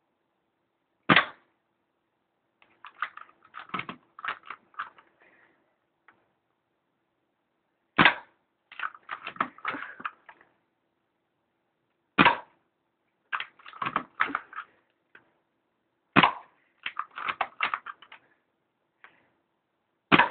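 Well MB06 spring-powered bolt-action airsoft sniper rifle firing five single shots about four seconds apart. After each shot comes a quick run of clicks and clacks as the bolt is worked to cock the spring and chamber the next BB.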